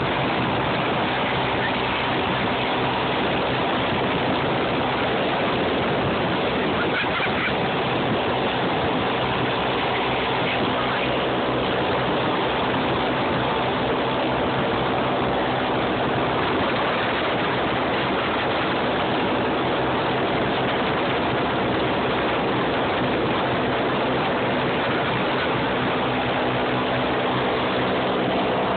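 Steady drone of a blimp's engines and propellers heard from inside the gondola. An even rushing noise with a constant engine hum under it, not changing in pitch.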